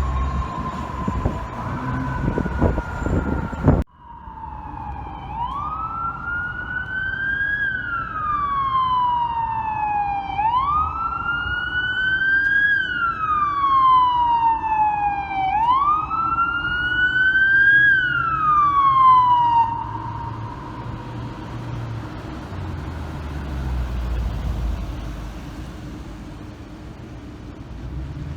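Fire truck siren wailing in three slow cycles, each winding up quickly and coasting down over several seconds, then dying away into steady traffic and engine rumble. It follows an abrupt cut from another siren's falling tail over a truck's rumble about four seconds in.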